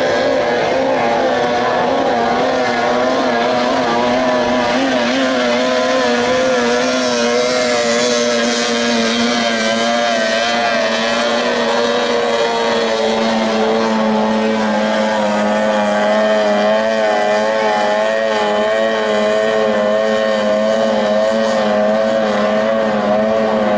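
30 hp outboard engines on tunnel racing boats running at full throttle. Their high engine note holds steady in loudness while its pitch wavers up and down.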